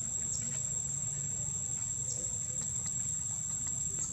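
Insects droning steadily at one high pitch, with three brief falling chirps over the drone, about two seconds apart.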